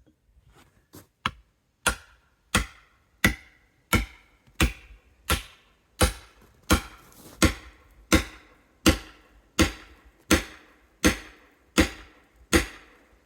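A hatchet repeatedly striking into a fallen log to split it. A couple of light taps are followed, from about two seconds in, by a steady run of about sixteen hard blows, roughly one every 0.7 seconds, each with a short ringing note.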